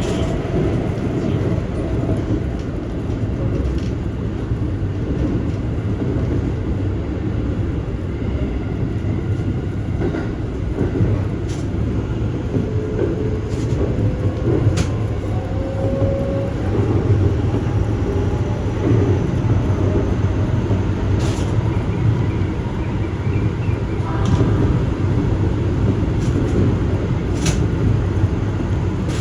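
Keikyu Main Line train running on the track: a steady low rumble with a few sharp clicks now and then.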